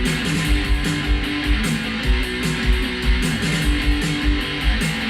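Background music: a guitar-driven rock track with a steady drum beat.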